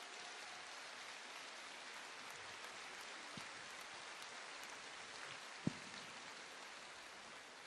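Steady hiss of audience noise in a large hall, with one short thump about five and a half seconds in.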